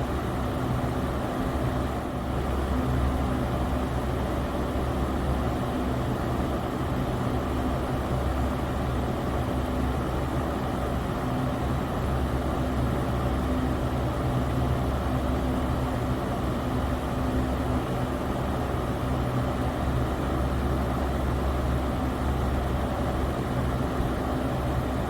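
Electric fan running steadily: a low motor hum under the even whoosh of moving air.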